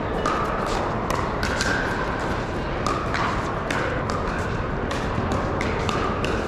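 Pickleball paddles striking plastic balls, sharp pops at irregular intervals, some from neighbouring courts, over the steady din of a large hall full of play.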